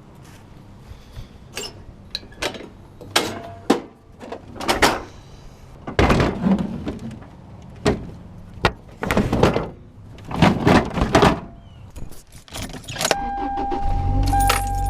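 Knocks, clicks and rustles of someone moving about in a car, then, near the end, a steady chime tone and the car's engine starting and running with a low rumble.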